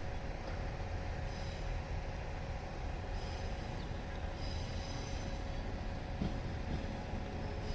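JR 115 series electric train coming slowly into the station over curved track and points, a steady low rumble with faint high wheel squeals coming and going several times.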